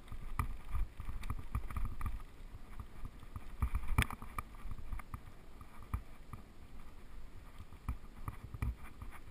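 Mountain bike rolling over a rough gravel track: a low rumble of tyres and wind with frequent rattles and knocks as the bike goes over bumps, the loudest about four seconds in.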